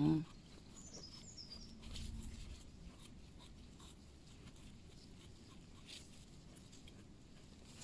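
Faint rustling and scraping of hands working on the forest floor, with a few brief high bird chirps about a second in.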